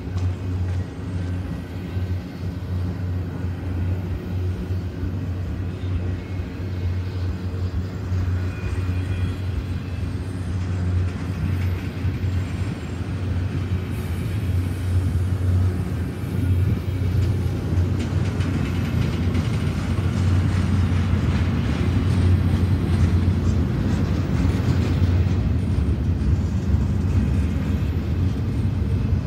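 Double-stack container train rolling past at close range: a steady rumble of steel wheels on the rails and the passing well cars, growing somewhat louder in the second half.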